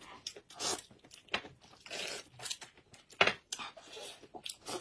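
Noodles being slurped and chewed from bowls of soup: a string of short, sharp slurps, one much louder a little past three seconds in.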